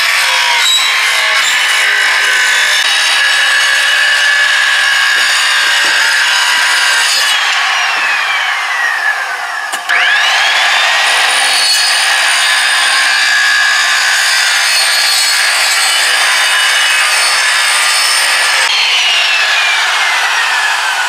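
Old Skilsaw circular saw fitted with a fine finish blade, cutting through a sheet of wall paneling. About seven seconds in the motor winds down with a falling whine. It starts again just before ten seconds with a rising whine and cuts on, then winds down again near the end.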